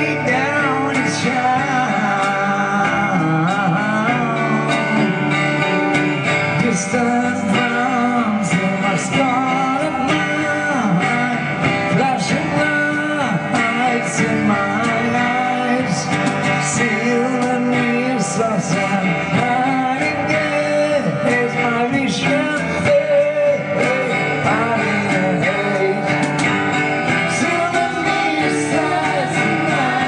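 Live acoustic music: an acoustic guitar strummed and picked under a woman singing, with light hand percussion.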